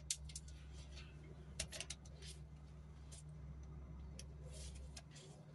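Scattered small metallic clicks and taps of a bolt and socket being handled on a cordless impact gun, over a faint steady low hum.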